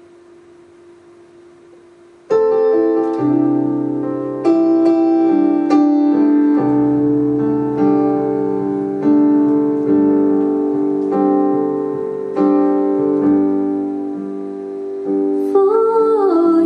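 Piano introduction to a song: chords struck about every second and left to ring, starting about two seconds in after a faint steady hum. Near the end a singer's voice comes in on a held note with vibrato.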